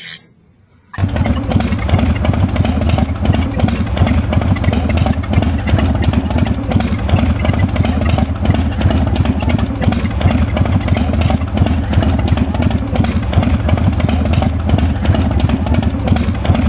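Harley-Davidson motorcycle's V-twin engine starting about a second in, then running steadily at idle through its exhaust.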